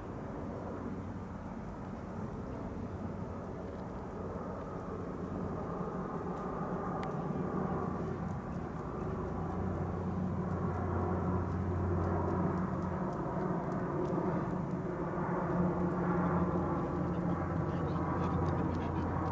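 ATR 42-300 turboprop airliner on approach, its two Pratt & Whitney Canada PW120 turboprops giving a steady low propeller hum that grows gradually louder as the aircraft comes closer.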